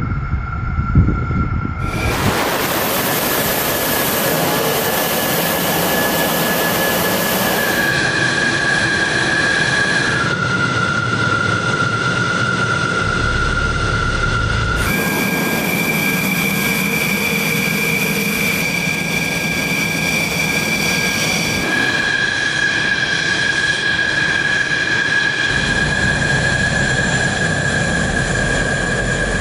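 Dassault Rafale's twin Snecma M88 jet engines running at ground idle while the fighter sits and taxies: a steady, high whine over a rush of noise. The pitch of the whine jumps to a new note every few seconds.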